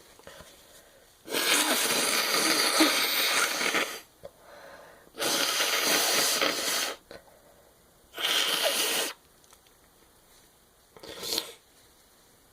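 A woman blowing her nose hard four times in a row during a sneeze fit, each blow shorter than the last: the first lasts nearly three seconds and the last is brief and quieter, with short breaths between.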